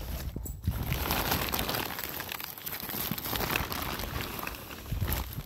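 Woven plastic bulk feed bag crinkling and rustling as it is pulled open and handled. The dense crackle starts about half a second in.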